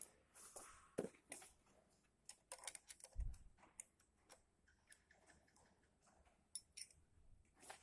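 Faint, scattered metal clicks and taps of a wrench and screwdriver working the rocker arm adjusting screws and locknuts on a Toyota 5K engine while the exhaust valve clearance is set, with a dull thump about three seconds in.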